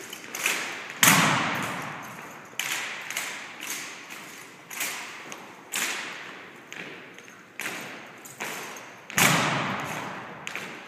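A rifle drill team's rifles being handled: a string of sharp knocks and thuds, each ringing on in a large hall, with two much louder strikes about a second in and near the end.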